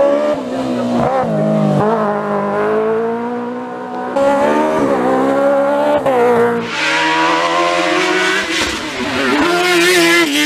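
Race car engine revving hard up a hill-climb course, its pitch breaking at each gear shift, then louder and fuller as the car passes close about seven seconds in.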